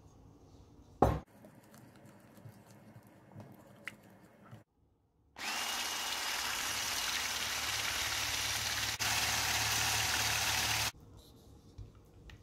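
Electric mixer with a wire whisk attachment running steadily in a glass bowl, beating wet batter for about five seconds, a little louder for its last couple of seconds, then stopping abruptly. Before it starts there is a single sharp knock.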